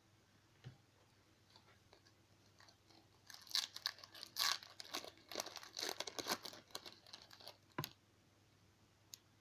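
Wrapper of a retail baseball-card pack being torn open and crinkled in the hands, a few seconds of dense crackling that ends in a sharp click.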